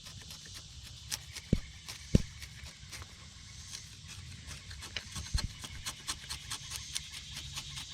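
Outer bark of a wild cherry tree being scraped and trimmed off by hand, a run of short, irregular scrapes and clicks with a few soft thumps.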